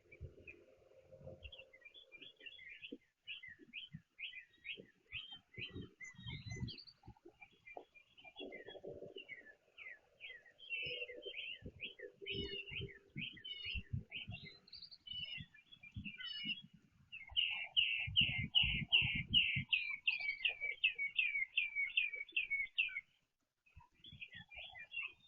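Small songbirds chirping over and over. About two-thirds of the way in comes a long run of quick, evenly spaced chirps, the loudest part. Scattered low thumps and knocks sound underneath.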